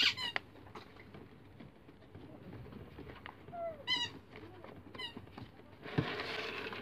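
Small electric motor of a toy ATM savings bank starting up about six seconds in and whirring steadily as it pulls a banknote into its slot. Before that, handling clicks and a few short falling chirps.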